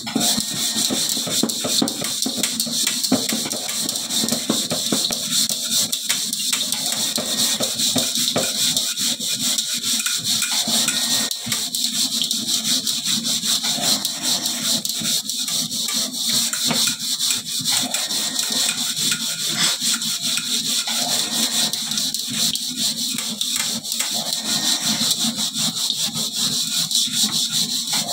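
A sponge scrubbing the bottom of a metal wok under a running tap: continuous rapid rasping strokes over a steady hiss of water.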